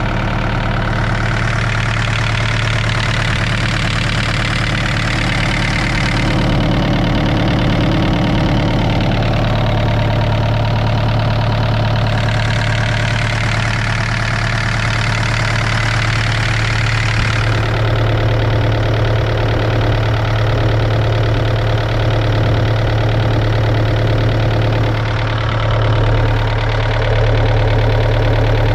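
Volvo ECR88 midi excavator's diesel engine running steadily at idle, with a steady low hum. A brighter hiss rises above the engine note twice, for several seconds each time.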